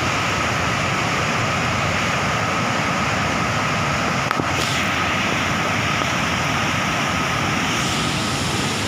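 Waterfall cascading down a narrow rocky gorge: a steady rush of falling water.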